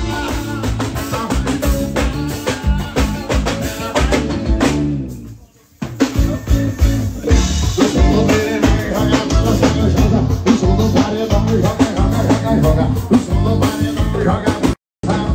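A live forró band playing at a sound check: a male lead voice singing over a drum kit and hand percussion with a steady swinging beat. The music fades out about four and a half seconds in and comes back abruptly about a second later, and drops out for a moment near the end.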